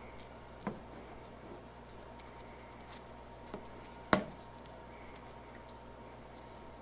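A few faint clicks and taps of hands handling things, with one sharp tap about four seconds in, over a low steady hum.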